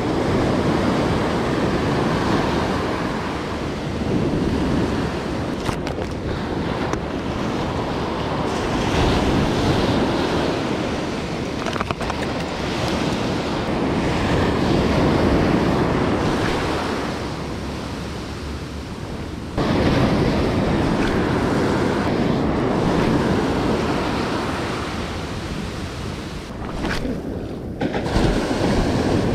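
Waves breaking and washing up a sandy surf beach, the noise swelling and ebbing as each wave comes in, with wind on the microphone.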